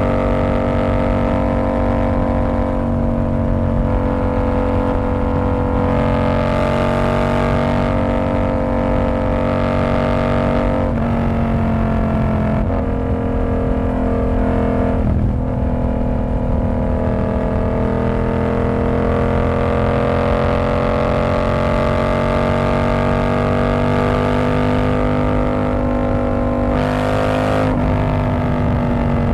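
Yamaha R7's 689 cc parallel-twin engine running through a TOCE exhaust with the dB killer removed, holding a steady cruising note. The pitch dips briefly a few times, near the middle and again near the end, as the throttle is eased or a gear is changed.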